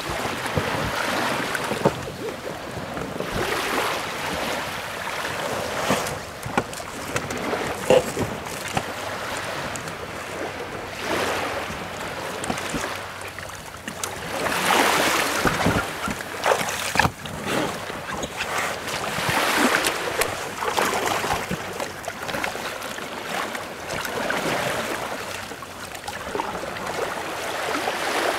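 Sea water splashing and rushing around a small boat, with wind buffeting the microphone; the noise swells and fades every few seconds, broken by a few sharp knocks.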